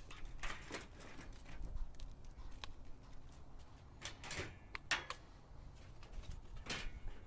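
Scattered light clicks and scuffs at irregular intervals, a cluster of them about four to five seconds in, over a low background rumble.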